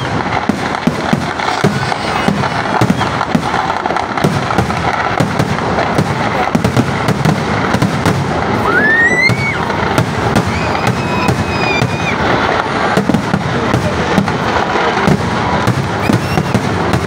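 Kerala temple-festival fireworks (vedikettu) in a dense barrage: a continuous rattle of rapid cracks and bangs from bursting shells and ground firecrackers. About nine seconds in, a rising whistle cuts through it.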